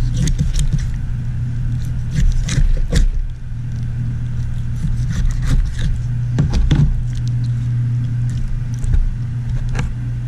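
Hands working the joints of a raw polar bear paw apart on cardboard: scattered wet cracks, clicks and scrapes, about a dozen in all, over a steady low hum.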